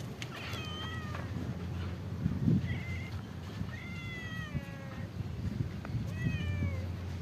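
Tabby cat meowing about four times, each call falling in pitch, the longest a drawn-out meow around the middle; a cat calling for food. A low thump comes about two and a half seconds in.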